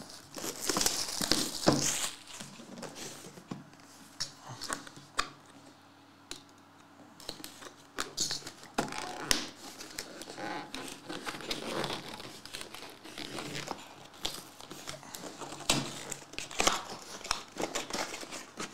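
Plastic shrink wrap and paper packaging on a sealed trading-card box being torn off and crinkled, with scattered clicks from the cardboard box being handled. It comes in irregular spells, with a sparser lull of a few seconds after the first two seconds.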